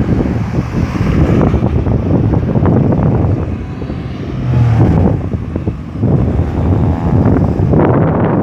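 Road traffic at a busy roundabout: vehicle engines and tyres running past in a steady rumble, with wind buffeting the microphone. Near the end, one engine rises in pitch as it accelerates past.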